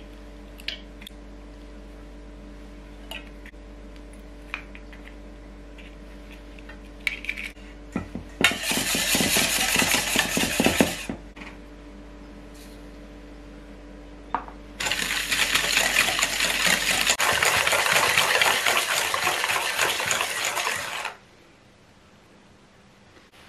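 Wire whisk beating egg yolks in a stainless steel bowl: a fast, clattering metal-on-metal rattle. It comes in two bouts, a short one about eight seconds in and a longer one from about fifteen seconds in that stops a couple of seconds before the end.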